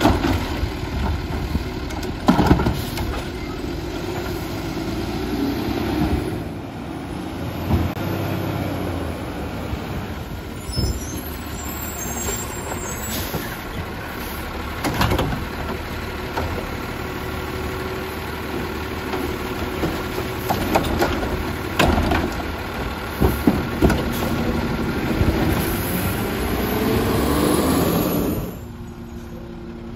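Heil MultiTask automated side-loader garbage truck running while its arm dumps carts, with repeated sharp clanging knocks of carts striking the hopper and being set down. The sound drops away near the end as the truck moves off.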